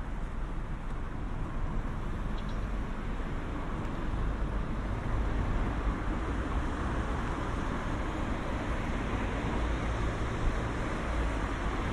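Road traffic noise: an even rumble and hiss of cars on a nearby street, growing a little louder about five seconds in.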